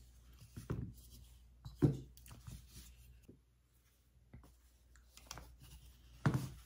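Handling noise from gun parts on a bench mat: a polymer pistol grip is set down and the pistol is picked up. There is light rustling and a few short knocks, the sharpest about two seconds in and just before the end.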